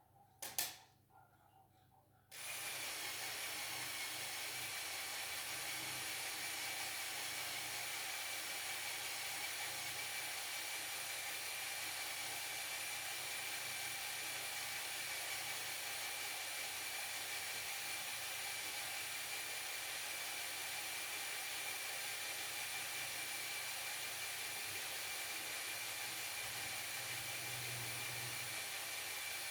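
A sharp click, then about two seconds in a small electric motor starts up and runs at a steady speed with an even, high whine. It cuts off abruptly right at the end.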